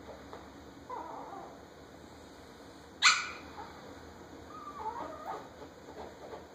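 Chihuahuas play-fighting: a short whiny cry about a second in, one sharp yap about three seconds in, and more wavering whines and yips near the end.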